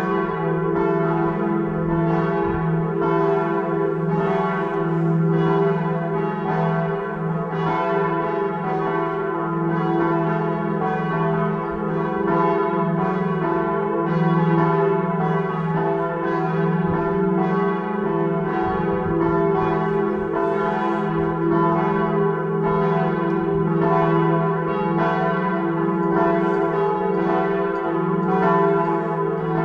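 Several church bells swinging and ringing together in a full peal, their strikes overlapping in a steady, continuous pattern over a lasting hum.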